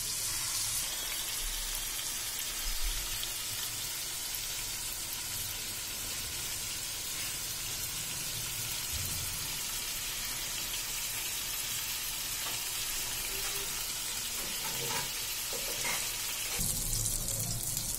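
Marinated chicken pieces frying in hot oil and butter in a frying pan: a steady sizzling hiss.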